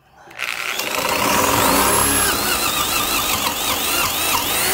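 Metabo/Hitachi D10VH2 7-amp corded drill starting up and boring a 3/4-inch installer's bit into a block of wood. The motor whine climbs quickly as it spins up, then wavers down and back up in pitch as the bit loads up in the cut.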